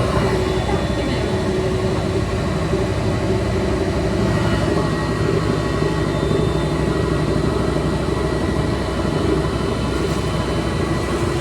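Extra-large coin-operated washing machine running: a steady, continuous low rumble with a few faint steady whining tones.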